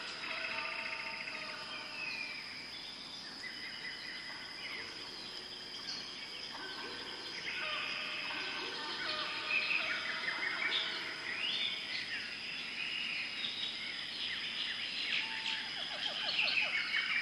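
Many birds calling and chirping over one another, busier in the second half, over a steady high-pitched tone.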